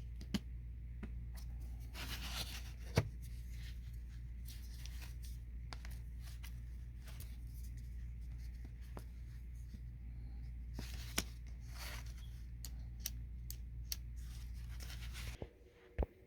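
Samsung front-load dryer running with a steady low hum, the sign of the dryer working again after its door switch was replaced. Scattered clicks and a couple of brief rustles of handling sound over it, and the hum stops suddenly near the end.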